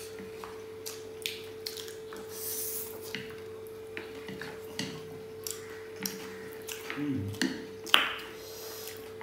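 Two people eating noodles: wooden chopsticks clicking together and tapping on paper plates in scattered short clicks, with small mouth sounds, and a sharper click about eight seconds in. A steady low hum runs underneath.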